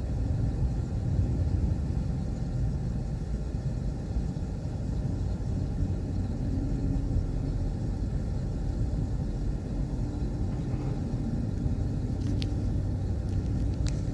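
Excavator's diesel engine running with a steady low rumble, with a few sharp clicks near the end.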